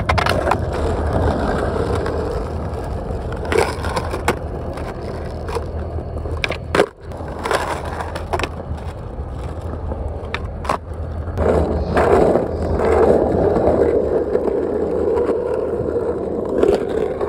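Skateboard wheels rolling over rough concrete and asphalt, a steady gritty rumble broken by several sharp clacks of the board striking the ground. About eight seconds in, the board scrapes along a concrete curb edge in a grind.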